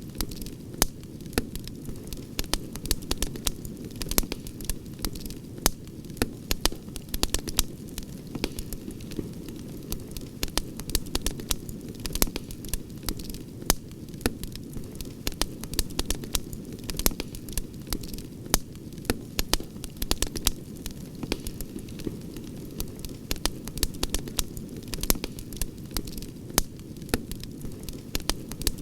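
Campfire crackling: irregular sharp pops and snaps, several a second, over a steady low rush of burning wood.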